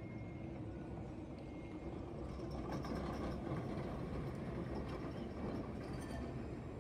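Alstom Citadis low-floor tram rolling past at low speed on street track: a low rumble of wheels and traction gear that swells about two and a half seconds in as the tram comes alongside.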